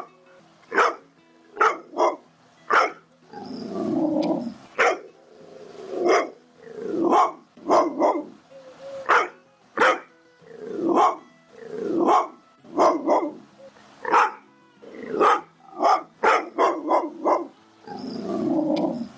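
Pit bull barking angrily and repeatedly, about one sharp bark a second, with a few longer drawn-out barks in between.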